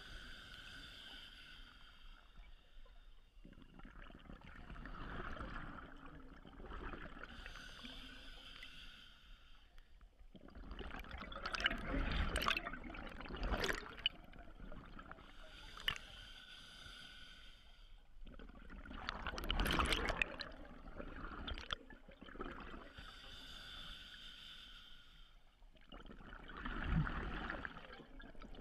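Scuba diver breathing underwater through a regulator. Each breath is a hissing inhale through the demand valve followed by a louder rush of exhaled bubbles, three breaths about seven to eight seconds apart.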